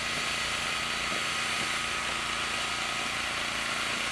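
Steady background hum and hiss with a faint constant whine and no distinct events, like an engine or generator running.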